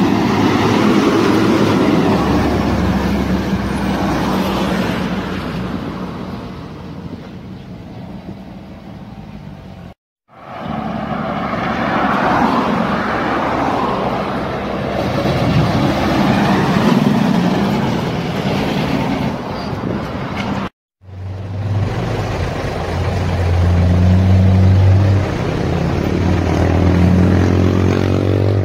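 Heavy diesel trucks running along a road, heard in three stretches, each broken off by a moment of silence. The first, a Shacman dump truck, fades away as it goes by. The second swells as a truck approaches and passes. The last is a steady low engine hum in traffic that grows louder near the end.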